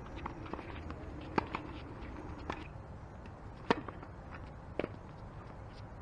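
Tennis ball struck back and forth by racquets in a quick doubles rally: four sharp hits about a second apart, the third the loudest, with faint footsteps on the hard court between them.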